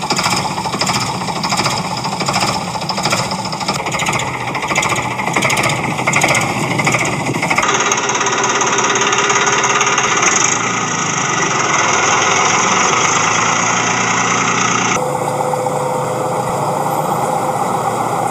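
Rapid rattling engine-like chugging for the toy tractors. It changes sound abruptly twice, about a third of the way in and again about four-fifths in.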